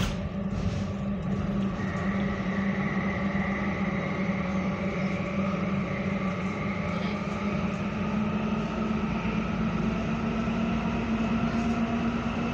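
Copenhagen Metro train running through a tunnel: a steady low rumble and hum, with the electric drive's whine slowly rising in pitch as the train gathers speed. A short knock comes at the very start.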